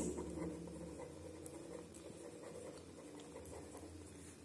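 Faint scratching of a ballpoint pen writing on a paper diary page, over a low steady hum.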